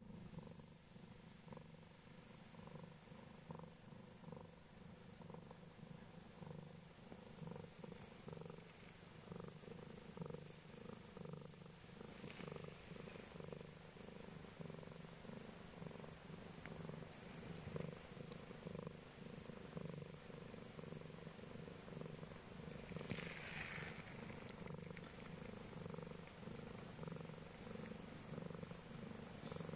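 A Scottish Straight cat purring steadily and softly. The purr swells and eases in an even rhythm with each breath.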